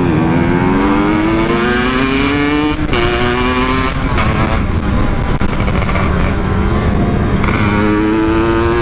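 Two-stroke single-cylinder Kawasaki Ninja 150 engine, swapped into a Yamaha RX-King, pulling hard through the gears: its pitch climbs, drops sharply at an upshift about three seconds in and again about a second later, then climbs once more near the end. Wind rushes on the microphone throughout.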